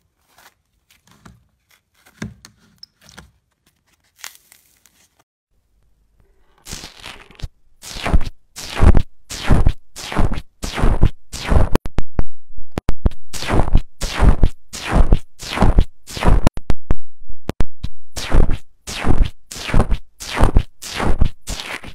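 A finger poking repeatedly into a tub of bubbly foam slime, about two loud pokes a second, each starting sharply and fading quickly, with small clicks between them, starting about six seconds in. Before that only faint soft sounds of slime being handled.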